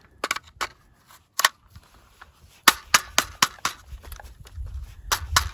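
Sharp metallic clicks and clacks of an AR-15 rifle being handled and loaded, its magazine being fitted into the magazine well. A few single clicks come first, then a quick run of about five, then two more near the end.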